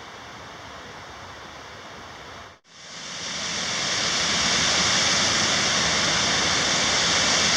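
Water rushing at Paulina Creek's twin waterfalls: a steady, even rush that fades in loud after a brief dropout about two and a half seconds in. Before the dropout there is a fainter steady hiss.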